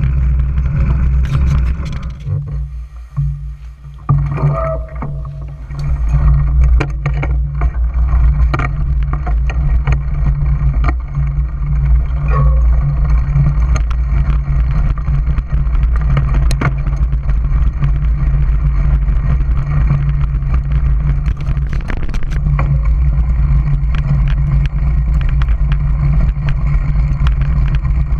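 Wind rumbling on a bike-mounted action camera's microphone, with the clicks and rattles of a mountain bike rolling over a dirt trail; the rumble drops away briefly about two to four seconds in.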